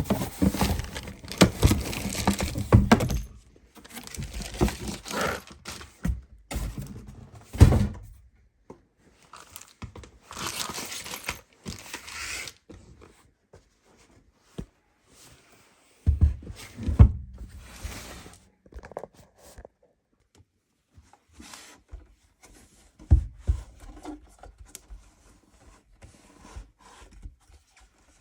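Irregular handling noises: thunks and knocks of objects being moved and set down, with rustling, crinkling and tearing like packaging being handled, in bursts with short quiet gaps.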